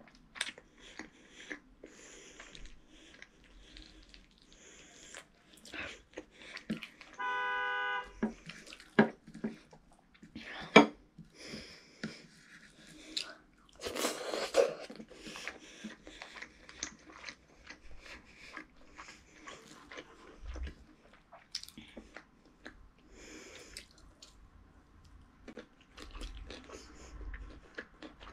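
Close-up chewing and lip-smacking of a boy eating rice and curry by hand, with sharp clicks and taps of fingers on a china plate scattered throughout. About seven seconds in, a steady beep-like tone sounds for under a second.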